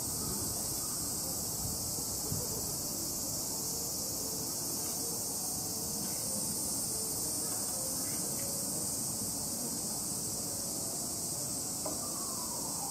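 A steady, high-pitched chorus of summer insects, over constant low background noise.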